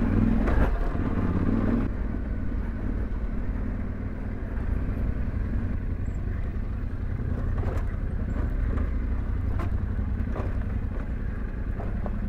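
Yamaha Ténéré 700's parallel-twin engine running steadily at low revs while riding slowly over a rough cobbled track, with a few short knocks and rattles from the bike over the stones.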